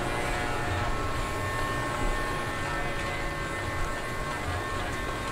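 Electric dog grooming clippers running with a steady motor buzz.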